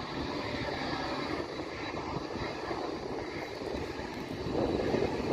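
Jet engines of a twin-engine airliner running as it rolls along the runway, a steady rushing noise that grows louder near the end.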